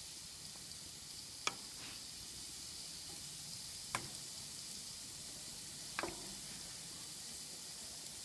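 Meat and chicken sizzling on a grill, a steady hiss, with three sharp metallic clicks of tongs against the tray or grate, about two seconds apart.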